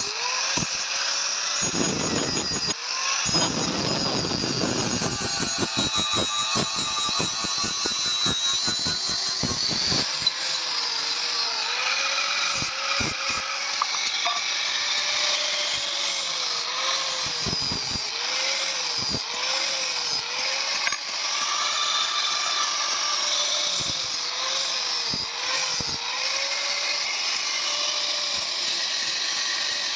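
Angle grinder with an abrasive disc grinding a steel spear blade. The motor's steady whine dips in pitch again and again as the disc is pressed into the steel, with a harsh grinding rasp strongest in the first ten seconds or so.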